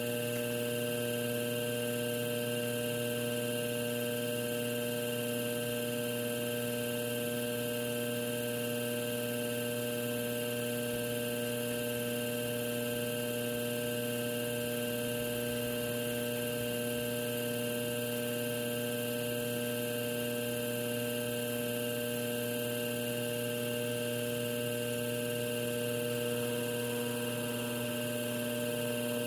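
Electric potter's wheel motor running at a constant speed, a steady hum made of several unchanging tones.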